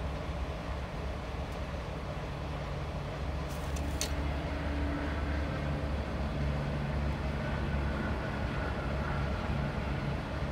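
Steady low rumble of an idling engine, with a couple of light clicks about four seconds in.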